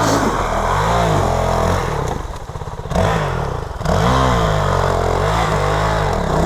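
Dirt bike engines revving in repeated throttle bursts, the pitch swinging up and down, with a louder surge about four seconds in.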